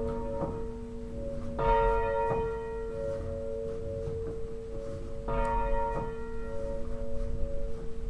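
Church bell, rung by hand with a rope, being braked to a stop. The clapper strikes twice, about four seconds apart, and each strike is followed by long ringing with a pulsing hum. The bell is slowed gently on the rope, so it comes to rest without bounce strikes.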